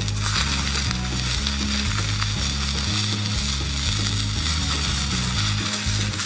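Steak sizzling in a black iron frying pan over an open wood fire, a steady spitting hiss that comes up suddenly just after the start. Background music with a low bass line plays underneath.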